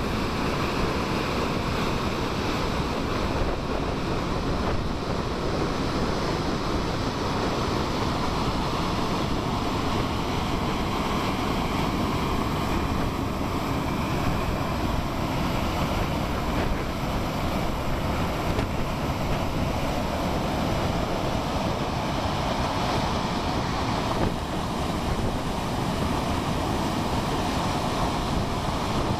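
A swollen, fast-flowing river rushing in a steady deep roar of churning water, with some wind on the microphone.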